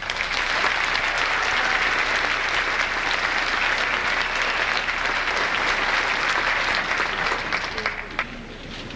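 Audience applause, a dense steady clapping that dies away about eight seconds in.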